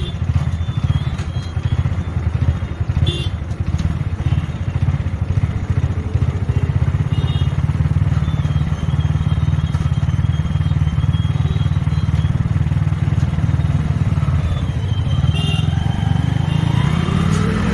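Motorcycle engine running steadily, its rear tyre spinning against an AC alternator's pulley to drive the alternator; the engine speeds up near the end.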